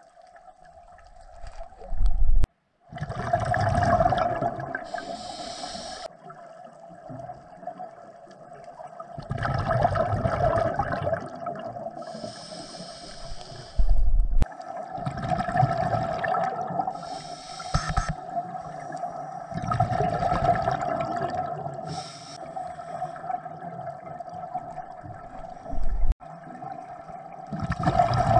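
Scuba regulator breathing heard underwater: a bubbling exhalation surge about every five to six seconds, with a high hiss of inhalation between them. Three sharp knocks come about twelve seconds apart.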